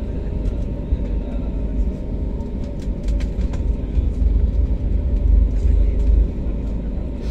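Cabin noise of an Airbus A320-family airliner taxiing: a steady, deep rumble with a faint hum and a few light clicks. The rumble grows a little louder about four seconds in.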